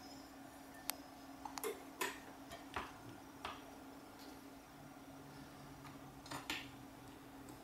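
Handling noise from a quadcopter frame: scattered light clicks and taps, about ten in all, over a steady low electrical hum, with a second, lower hum joining about five seconds in. The motors are not running; the flight controller is disarmed.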